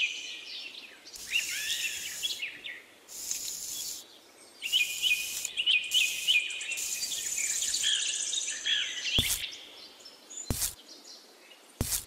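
Birds chirping over and over, with stretches of scratchy hiss as a tiny rake scrapes through loose sand, and a few sharp clicks near the end.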